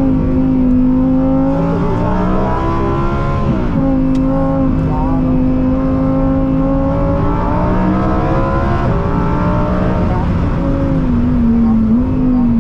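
Lamborghini Huracán's naturally aspirated V10 heard from inside the cabin on track: the engine note holds steady, climbs twice under acceleration, and drops sharply after each climb.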